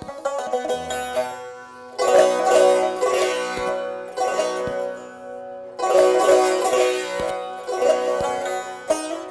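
Azerbaijani tar playing a melody, its plucked strings ringing. Louder passages come in about two seconds in and again about six seconds in.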